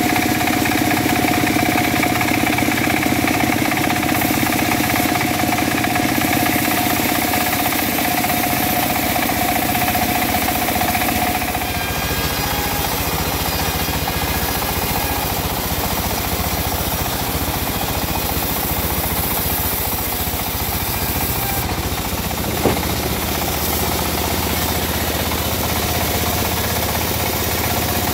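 An engine running steadily, its tone changing and growing slightly quieter about eleven seconds in. A single sharp knock comes near twenty-three seconds in.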